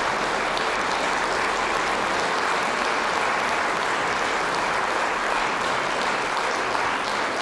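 Concert audience applauding steadily, a dense, even clatter of many hands.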